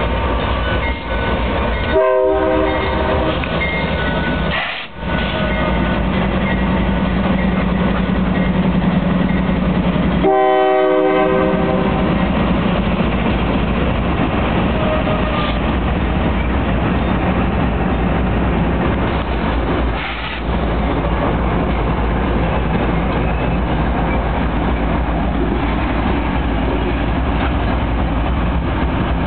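A set of BNSF diesel locomotives running light and rolling close by, with steady engine drone and wheels clacking over the rail joints. Two short blasts of the multi-tone air horn come at about 2 and 10 seconds in.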